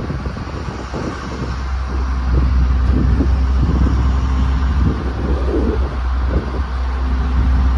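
Fishing boat's engine running under way, a steady low drone that grows louder about two seconds in, with wind buffeting the microphone.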